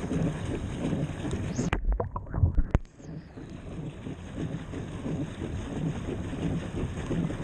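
Pond water splashing and sloshing against a paddle boat's hull and a camera mounted at the waterline as the boat moves, with wind buffeting the microphone. About two seconds in the microphone dips under the surface for about a second: the sound goes muffled with a few low thumps, then the splashing returns.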